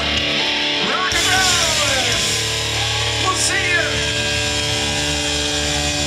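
Live rock band with electric guitars holding a sustained chord, with a few high wails that rise and fall in pitch riding over it.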